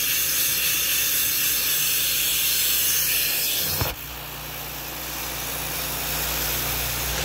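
Carpet-extraction (steam-cleaning) machine running with a steady hiss and hum. About four seconds in the sound cuts to a quieter hiss as the extraction wand works the carpet, slowly growing louder.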